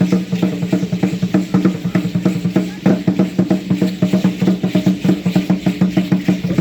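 Aztec dance drumming: a drum beaten in a fast, steady rhythm of several strokes a second, with a deep resonant boom under each stroke.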